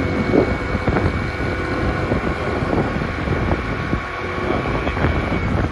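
A motorbike engine running steadily while being ridden, with wind buffeting the microphone.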